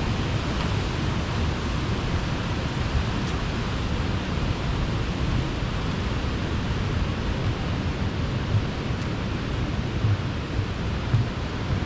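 Steady rush of a fast-flowing mountain creek, an even noise without breaks.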